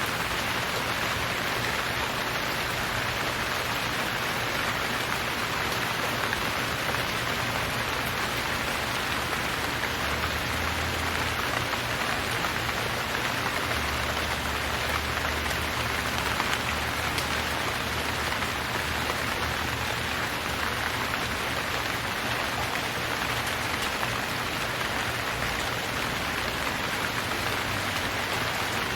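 Steady rain falling, a dense, even hiss of many drops that keeps the same level throughout.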